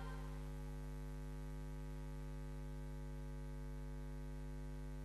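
Faint steady electrical hum, a low mains buzz with a row of even overtones, over a light hiss.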